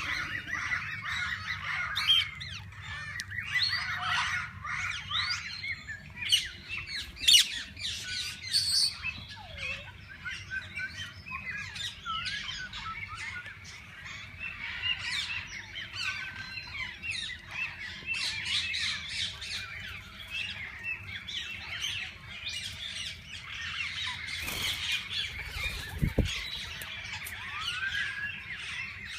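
A mixed flock of parakeets chattering, with many overlapping chirps and squawks and a few louder shrieks standing out. A dull thump comes about 26 seconds in.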